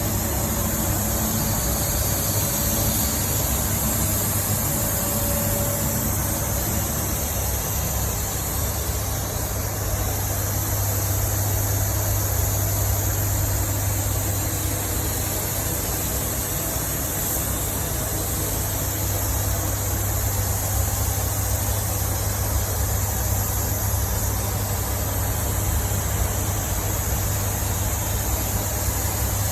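Steady mechanical running noise: a constant low hum with a strong, even high hiss, unchanging throughout.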